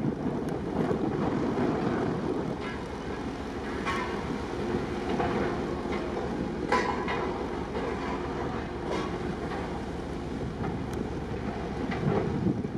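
Steady low rumble with wind buffeting the microphone, broken by a few short knocks or clatters.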